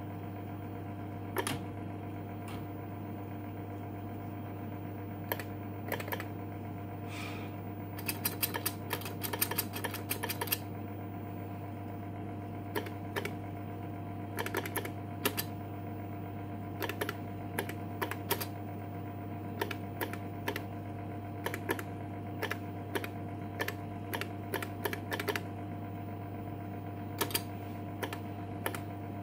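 Keystrokes on an IBM Displaywriter's beam-spring keyboard: sharp clicks, single and in quick runs, with a dense burst of typing about eight seconds in, over a steady low hum.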